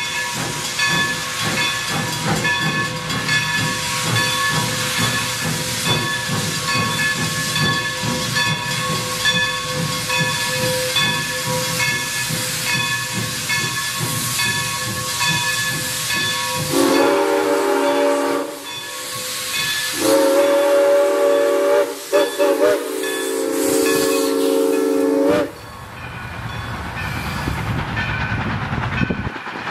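New Hope & Ivyland No. 40, a Baldwin 2-8-0 steam locomotive, hissing loudly as it blows steam from its cylinders. Its whistle sounds a short blast about 17 seconds in, then a longer one from about 20 seconds, broken briefly near 22 seconds. The steam hiss resumes after the whistle stops.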